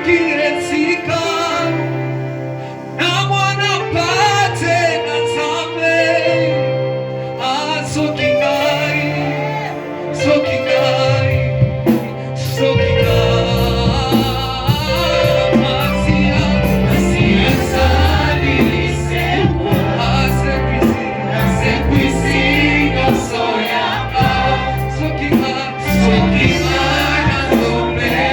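Gospel worship song: voices singing together over instrumental backing, with a deep bass line coming in about twelve seconds in.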